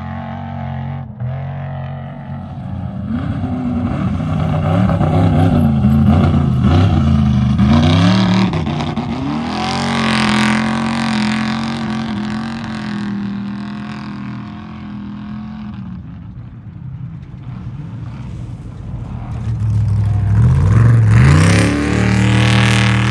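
Off-road race vehicle engines revving hard, the pitch climbing and dropping through gear changes, in two loud spells with a steadier engine note in between; the second surge comes near the end.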